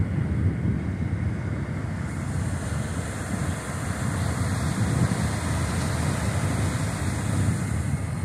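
Wind blowing across the microphone by the sea: an uneven, gusty low rumble over a steady hiss.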